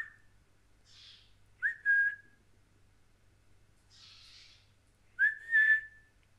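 A person whistling three short notes about two and a half seconds apart, each gliding up in pitch and then held briefly, the last one the longest.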